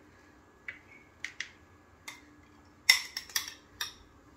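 Metal spoon clicking and tapping against a bowl as fried bacon bits are scooped and tipped out: a few single clicks, then a quick cluster about three seconds in.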